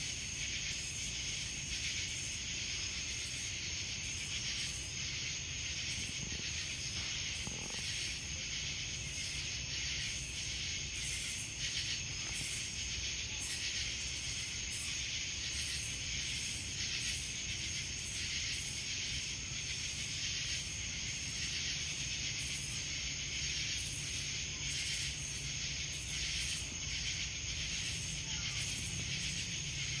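Cicadas chorusing in a steady, unbroken high-pitched drone, over a low background rumble.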